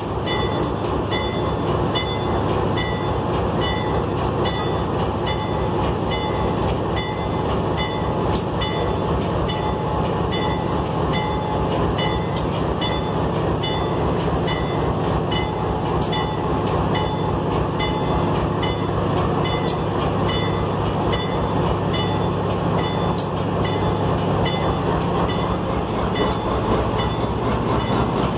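GE diesel-electric locomotive's engine running steadily as the locomotive moves slowly up to a caboose to couple, with a short ringing tone repeating evenly a few times a second over the engine.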